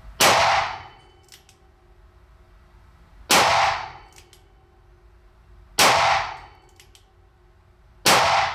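Four shots from a Ruger LCRx .38 Special snub-nose revolver, evenly spaced about two and a half seconds apart, each a sharp crack that rings out briefly.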